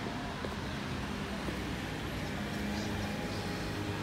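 Street traffic: cars running along the road, with a steady low engine hum that grows stronger about three seconds in.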